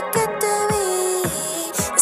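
Pop track with deep, falling bass hits about twice a second under sustained synth lines.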